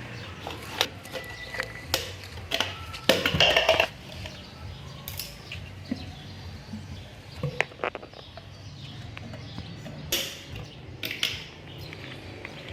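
Irregular handling noises: sharp taps, clicks and short scrapes. The loudest is a rustling scrape lasting about a second, roughly three seconds in.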